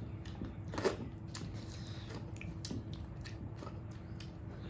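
A person chewing a mouthful of rice and curry, with irregular wet mouth clicks and smacks, over a faint steady hum.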